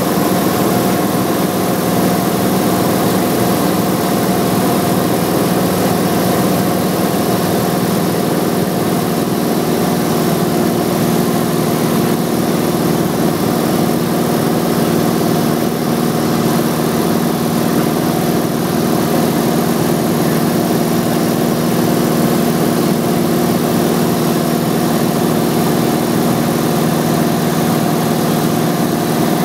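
Single-engine propeller aircraft's engine and propeller droning steadily in level flight, an unbroken hum with several steady tones over a rushing noise.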